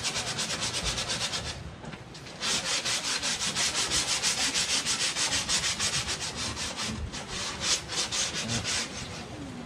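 A paintbrush scrubbing back and forth against a boat hull in quick rhythmic strokes, about six a second. There is a short pause about two seconds in, after which the strokes come back louder.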